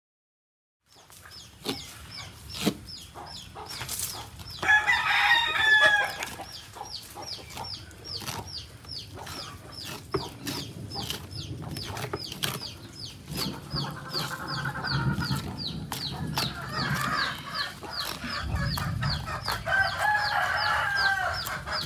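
Roosters crowing several times, loudest about five seconds in and again near the end, over a high chirping tick that repeats about three times a second. Sharp clicks and knocks of a knife on a wooden table as a gar is filleted run underneath.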